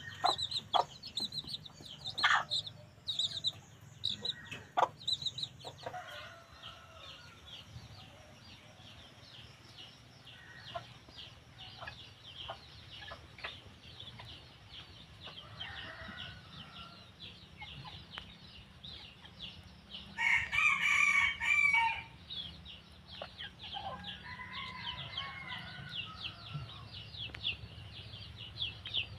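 Red junglefowl rooster crowing once, a short call of about a second and a half about two-thirds of the way in. Sharp peeps from chicks come in the first few seconds, softer clucks are heard here and there, and a fast high chirping runs underneath.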